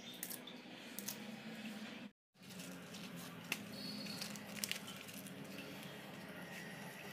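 Kitchen knife cutting vegetables on a wooden chopping board: scattered light knocks and clicks with the rustle of cabbage and leafy greens being handled, over a low steady hum. The sound cuts out for a moment about two seconds in.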